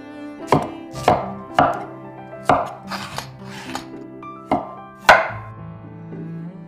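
Cleaver chopping carrot on a wooden chopping board: six sharp chops at an uneven pace, the loudest about five seconds in, over soft background music.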